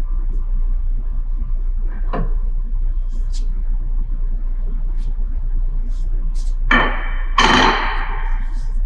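Metal clanks as removed steel arbor flanges are set down on the saw's cutting table: a light knock about two seconds in, then two louder ringing clanks about a second apart near the end, over a steady low hum.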